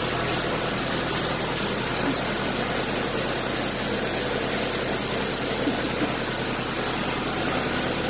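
Farm tractor's diesel engine running steadily with an even, unchanging drone.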